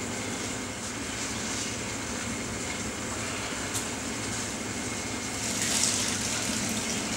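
Hot sparge water poured from a plastic pitcher into a cooler mash tun, over a steady rushing noise. The pour splashes louder about six seconds in.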